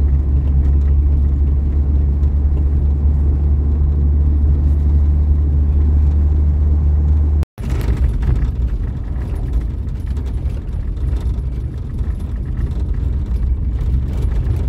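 A vehicle driving, heard from inside: a steady, loud low engine and road rumble. It breaks off for an instant about halfway through and comes back weaker and rougher.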